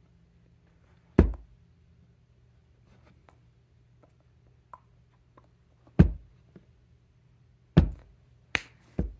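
Hands slapping and knocking while signing in sign language: about five sharp, unevenly spaced hits with a few faint ticks between, over a faint steady low hum.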